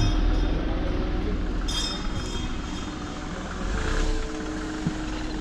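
Busy market-street ambience: a steady wash of traffic and crowd noise with a constant low rumble underneath.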